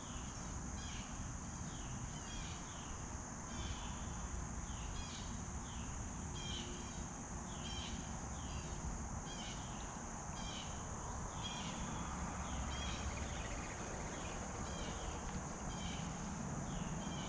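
Late-summer outdoor chorus: a steady high insect buzz, with short falling chirps repeating somewhat more than once a second over a low rumble.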